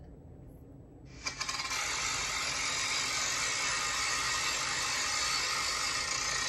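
Small plastic BeanBoozled game spinner spun, its wheel clicking rapidly as a dense, steady rattle of ticks that starts about a second in and keeps going without slowing.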